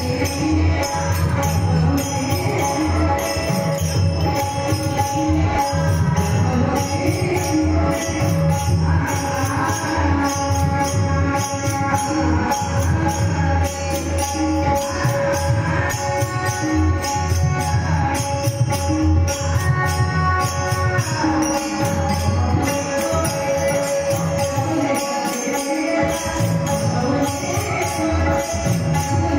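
Marathi devotional song accompaniment: tabla strokes keep a steady beat under a bending melodic line and held steady tones, with a fast, even ticking percussion on top.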